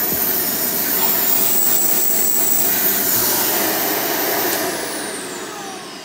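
Hoover Elite upright vacuum with an Elite Supreme motor running in tool mode through its hose, rushing air with a loud high whistle; its suction leaks because the tool hookup is poorly sealed. Near the end the motor winds down, its whine falling in pitch and fading.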